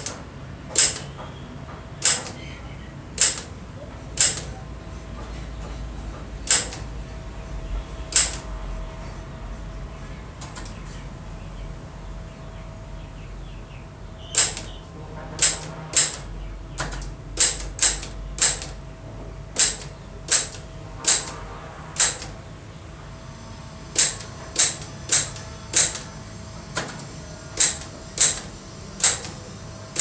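Royal manual typewriter being test-typed with one finger after restoration. Each key sends its typebar against the platen with a sharp clack. The strikes come slow and irregular, with a lull of a few seconds in the middle and a quicker run of keystrokes in the last third.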